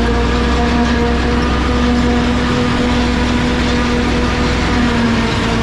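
Truck engine running steadily, heard from inside the cab as an even, loud drone.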